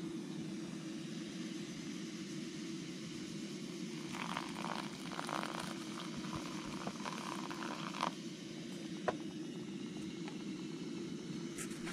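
Butane cartridge camping stove burner running with a steady low roar. From about four to eight seconds hot water is poured from a pot onto ground coffee in a paper filter cone, adding a splashing trickle, followed by a couple of light knocks.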